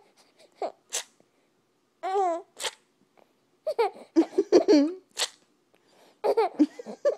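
A voice making short, silly non-word noises: sharp breathy puffs, a wavering warble about two seconds in, and giggly, pitch-bending sounds in between.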